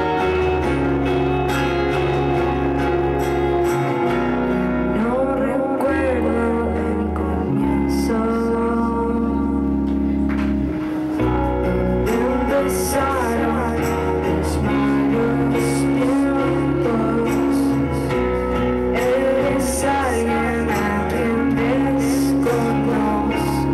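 A live song: a singer's voice over strummed acoustic guitar, with a low bass line whose notes change every couple of seconds. The singing comes in phrases, with guitar-only stretches between them.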